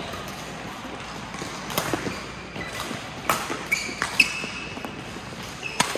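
Badminton rally: a handful of sharp racket strikes on the shuttlecock, a second or more apart, mixed with short squeaks of shoes on the court.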